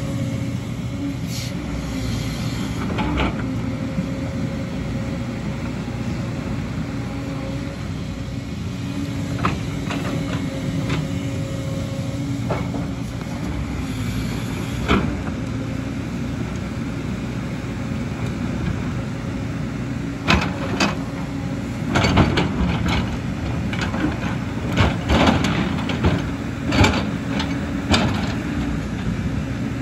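JCB tracked excavator's diesel engine running steadily under load with its hydraulics working. Scattered sharp knocks and scrapes of the steel bucket against rock and earth come more often in the last third.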